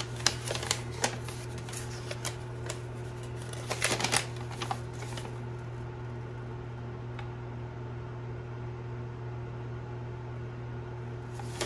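Paper crinkling and rustling as a folded packing slip is opened out by hand, a run of short crackles over the first few seconds, loudest about four seconds in. After that only a steady low background hum remains.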